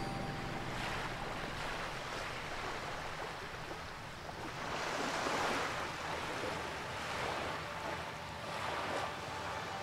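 Waves washing onto a sandy beach, surging and falling back, loudest about five seconds in with smaller surges after.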